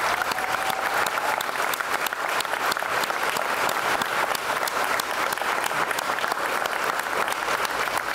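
Applause: a group of people clapping, dense and even.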